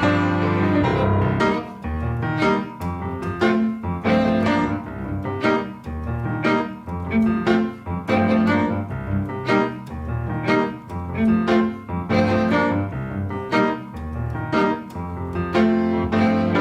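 Jazz band with a string quartet playing an odd-meter (5/4) tune: piano chords struck in a repeating pattern over a double bass line, with bowed strings underneath.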